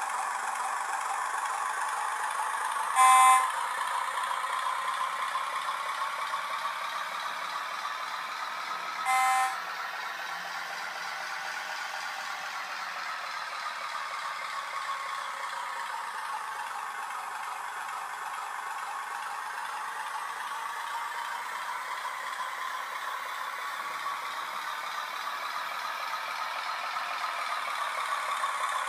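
MZ analog sound module in a Roco TT-scale model of the ČSD 'Brejlovec' diesel locomotive, playing a diesel engine sound through its tiny speaker while the model runs on pulsed power: thin and without bass, its pitch slowly rising and falling. Two short horn toots sound about three and nine seconds in, the first the loudest.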